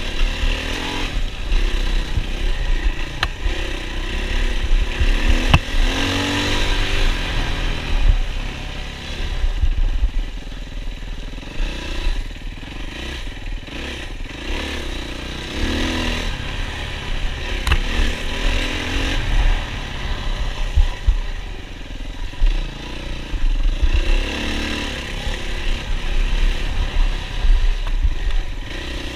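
Yamaha WR450F's 450cc single-cylinder four-stroke engine revving up and down again and again as the dirt bike is ridden hard off-road, heard from a camera mounted on the bike or rider, over a heavy low rumble and with occasional sharp knocks.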